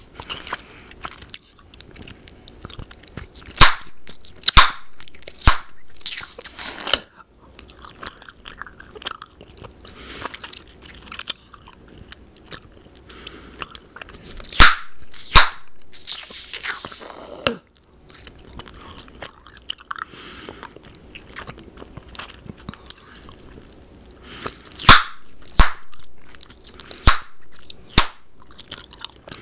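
Bubble gum chewed and popped close to the microphone: wet smacking and clicking throughout, with sharp, loud gum pops in clusters, the loudest about 4, 15 and 25 seconds in.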